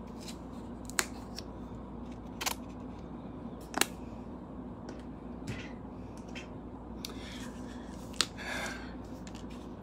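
Four sharp clicks spread over several seconds, with a soft rustle near the end, from acrylic paint bottles being picked up and handled on the work table.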